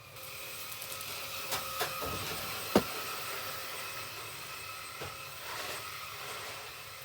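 Merch packaging being handled over a steady hiss: a few light clicks, and one sharp snap about three seconds in.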